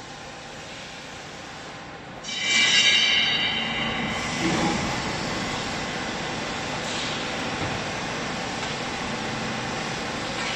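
HBC300 horizontal bagging baler running with a steady mechanical noise. About two seconds in it grows suddenly louder with a high-pitched metallic squeal that fades over a second or so, then it carries on running steadily at the louder level.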